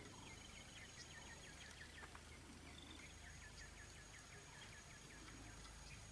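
Faint rural outdoor ambience, with a small bird singing two rapid trills of short repeated notes, each about two seconds long.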